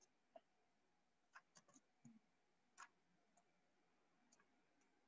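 Near silence with about seven faint, sharp clicks in the first three seconds, from working a computer mouse and keyboard while copying and pasting spreadsheet cells.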